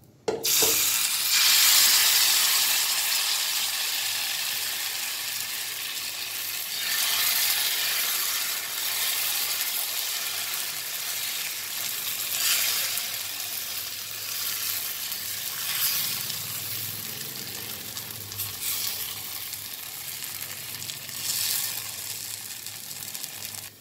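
Wheat-flour pancake batter sizzling on a hot iron tawa. The sizzle starts suddenly as the batter hits the griddle about half a second in, is loudest soon after, then goes on as a steady hiss that slowly fades, with a few brief swells.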